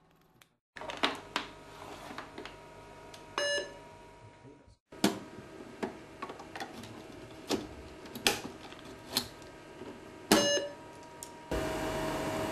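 Plastic clicks and knocks as a reagent cartridge is handled and loaded into a Siemens DCA Vantage diabetes analyzer, with two short electronic beeps from the analyzer. Near the end a steady hum with a held tone sets in.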